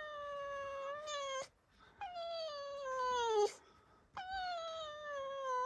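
Fox squeaking indignantly in a series of three long, high whining squeaks, each about a second and a half long. Each slides down in pitch and breaks off sharply.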